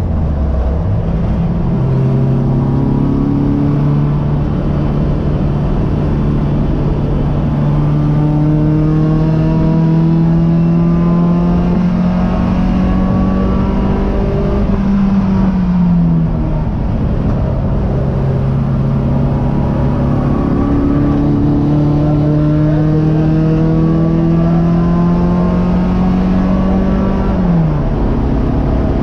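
Race car engine heard from inside the cockpit, its pitch climbing slowly and steadily under acceleration for about thirteen seconds, then falling sharply. A second long climb follows and drops sharply again near the end.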